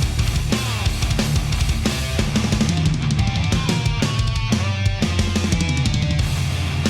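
Background rock music with a driving drum beat and electric guitar.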